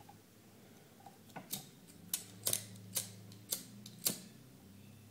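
Pocket lighter being struck about seven times in quick, uneven succession, sharp clicks of the spark wheel, until it catches on the last and loudest strike.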